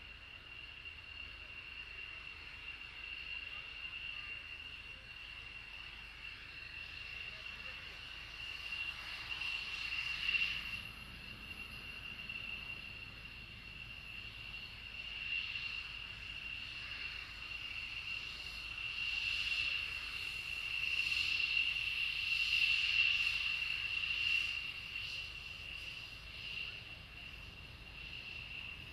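F-16AM Fighting Falcon jet engine running at taxi idle: a steady high whine with a hiss. It swells several times and is loudest about three-quarters through.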